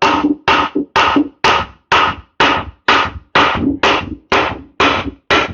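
A hammer striking a stuck metal tractor part about twice a second, some twelve blows in an even rhythm, each with a short metallic ring.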